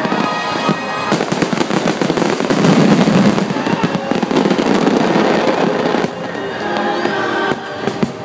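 A dense barrage of fireworks, many rapid bangs and crackles one on top of another, over choral show music. The barrage thins about six seconds in, the choir comes forward, and a few more bangs follow near the end.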